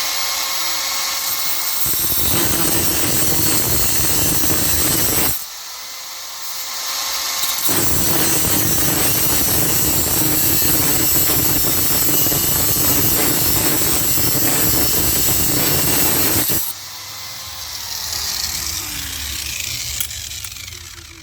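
Power grinder with a cutoff wheel cutting through the steel shackle of a Kryptonite U-lock in two long passes. The motor's steady whine turns into a loud, harsh grinding whenever the wheel bites into the metal and clears again between passes. Near the end the grinder is let off and winds down with a falling whine.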